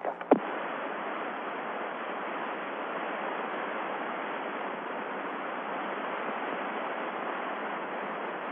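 Steady static hiss on the air-to-ground radio channel between transmissions, after a brief click as the previous transmission ends.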